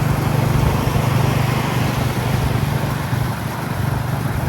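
Royal Enfield Classic 350's single-cylinder engine running while riding, a steady rapid exhaust thump over wind and road noise, a little quieter in the second half.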